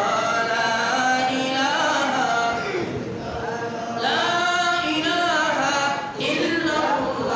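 A man chanting in a drawn-out melody into a microphone, holding long notes that rise and fall, in three phrases with short breaks about three and six seconds in.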